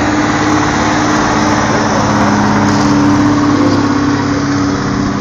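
Engine of a red vintage vehicle running steadily as it drives slowly past close by, a loud, even engine note.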